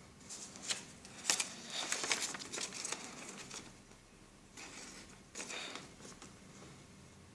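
The large blade of a Victorinox Spartan Swiss Army knife making a series of short slicing cuts in a sharpness test, each stroke a brief crinkling rasp, about seven in all with a pause in the middle.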